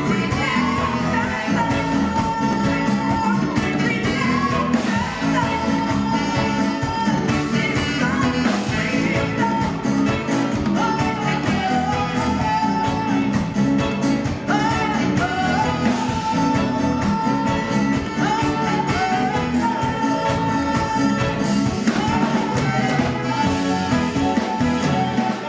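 Live afro-soul band playing a song, with a woman singing the lead melody over it.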